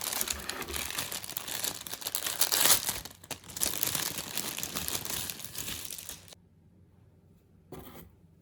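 Plastic packaging of butterfly locs crochet hair crinkling as it is handled. It is loudest about two and a half seconds in and stops abruptly about six seconds in, with one short rustle near the end.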